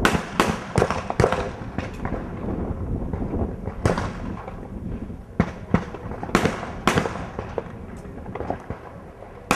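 Competition trap shotguns firing on several stands at once: an irregular series of about a dozen sharp reports, some close together, some louder and nearer than others, over steady outdoor background noise.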